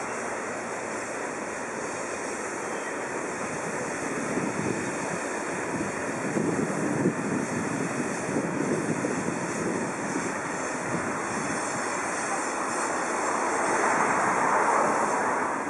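Freight train of tank and hopper wagons rolling past on the rails: a steady rumble of steel wheels with clatter over the rail joints, louder about six to eight seconds in and swelling again near the end.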